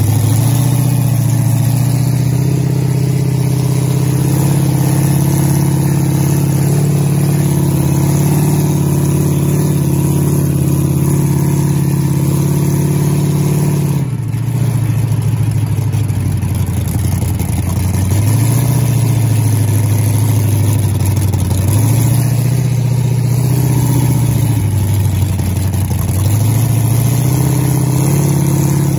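Monster truck ride truck's engine running, heard from the open passenger cage: a steady drone at first, then about halfway through it drops in pitch and rises and falls a few times as the truck speeds up and slows down.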